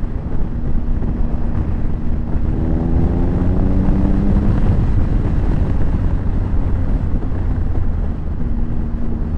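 2001 Triumph Tiger 955i's three-cylinder engine running under way, with heavy wind rumble on the microphone. About two seconds in, the engine note climbs steadily for a couple of seconds.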